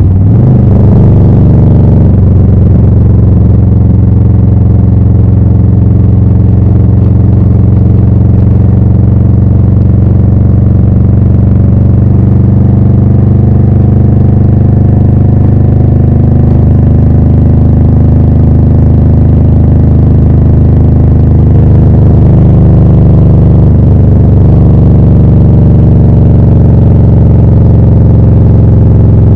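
Harley-Davidson Low Rider S's Milwaukee-Eight 114 V-twin running loud and steady through Rinehart slip-on exhausts, its pitch shifting briefly about a second in and again around two thirds of the way through.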